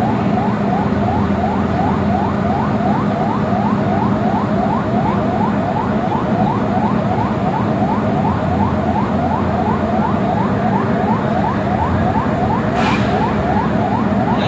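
Siren wailing in a fast repeating rising sweep, about three rises a second, over a steady low hum, with a brief sharp noise near the end.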